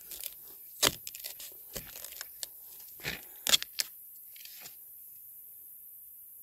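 A machete cutting a bamboo shoot off at its base: a run of sharp cracks and crunches, loudest about three and a half seconds in. A short rustle of the shoot's husk and dry leaf litter follows.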